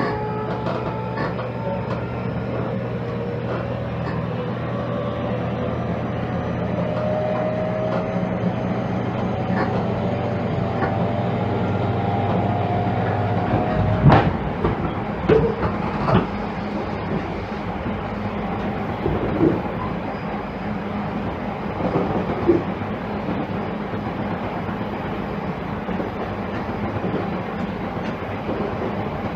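JR Kyushu 813-series electric train heard from inside its motor car, the Toshiba GTO VVVF inverter whining in several tones that rise slowly as the train accelerates. About halfway through, the whine and a low hum cut off with a sharp click. After that the train runs on with wheel-and-rail rumble and occasional clacks over rail joints.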